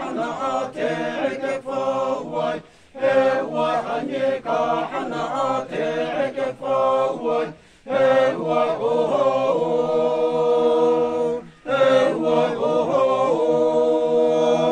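A group of men singing a traditional chant together, in phrases broken by short pauses for breath. The later phrases end in long, steady held notes.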